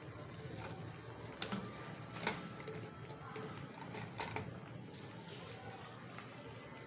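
Chicken simmering in a thin sauce in an aluminium frying pan, the liquid bubbling softly, with a few sharp clicks through the first four seconds.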